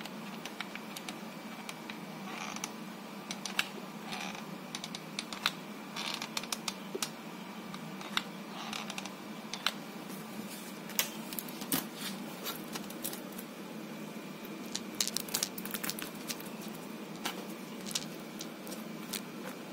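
Irregular light clicks and taps of hands working a hot glue gun and handling and pressing down a rhinestone mesh sheet, over a steady low hum.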